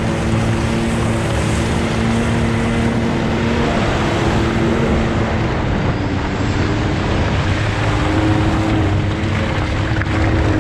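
Can-Am Maverick X3 X MR Turbo RR's turbocharged three-cylinder engine running under way, heard from on board the side-by-side. Its pitch holds fairly even, easing a little about a third of the way in and picking up again later, under a steady rush of wind and tyres working through mud.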